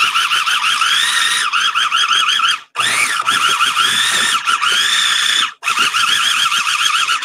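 Mini food processor's motor whining in pulses as its blade chops a chunky salsa, the pitch wavering quickly and rising at times. It stops briefly twice, just under three seconds in and again just under six seconds in.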